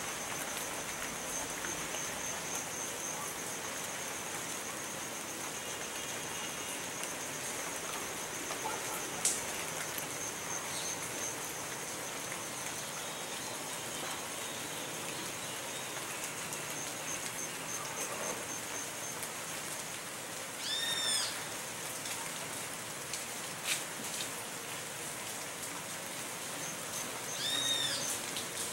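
Steady rain falling, with a great kiskadee giving two short bursts of ringing, arched calls, about two-thirds of the way through and again near the end.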